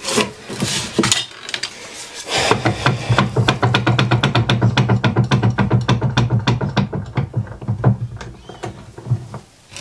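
Cast-iron bench vise being screwed shut by spinning its sliding T-bar handle: a fast, even run of clicks, about six a second, over a steady low hum, starting a couple of seconds in and stopping near the end.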